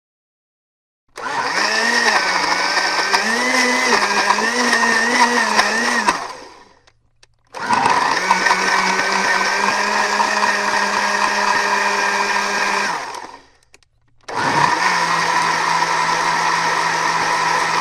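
Electric kitchen blender motor switched on three times. The first run whines with a wavering pitch before spinning down. The second runs at a steady pitch and spins down. The third starts again near the end.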